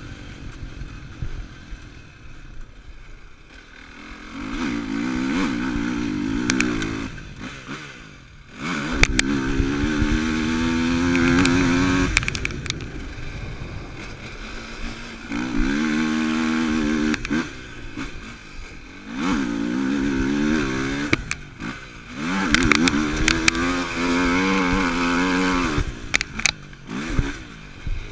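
Yamaha YFZ450R quad's single-cylinder four-stroke engine heard from on board, revving up hard in about five bursts with quieter off-throttle spells between them as it is ridden round a dirt track. Sharp knocks and clatter from the machine over bumps come now and then.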